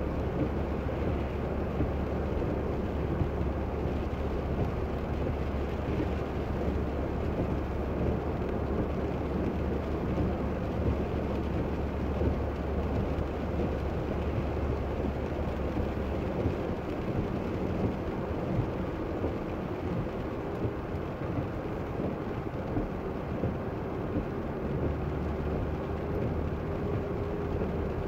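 Steady road and tyre noise with engine hum inside a car driving on a wet road in the rain. The low rumble eases about two-thirds of the way through.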